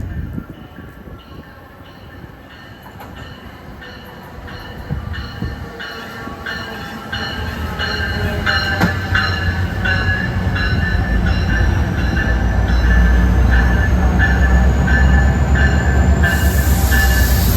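Passenger train approaching through the station, its rumble growing steadily louder over the first dozen seconds and then holding. An evenly repeated ringing sounds over it throughout.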